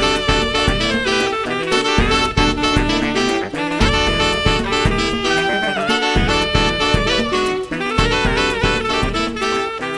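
Instrumental ensemble cover of a J-pop anime ending song, with saxophone and brass carrying a jazzy line over a driving bass.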